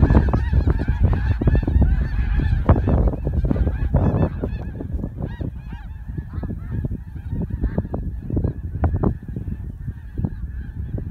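A large flock of snow geese calling in flight: a dense chorus of overlapping honks that thins out and grows fainter as the flock moves off, over a low rumble.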